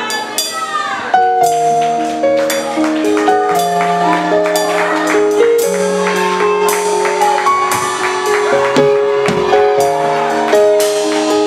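Worship music: held chords that change every second or so, over a steady beat of sharp percussion hits about twice a second.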